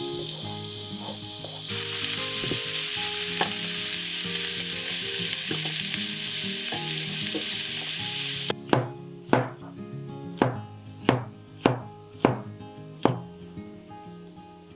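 Chopped onion sizzling in hot olive oil in a frying pan as it is stirred, the sizzle growing louder about two seconds in. About eight and a half seconds in the sizzle cuts off, and a kitchen knife chops on a cutting board in steady strokes, roughly two a second.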